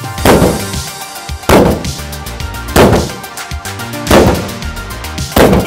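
Long-handled hammer striking the hull of an upturned aluminium jon boat: five loud bangs, each with a short ring, about one every second and a quarter. The blows tear through the thin aluminium bottom. Background music plays throughout.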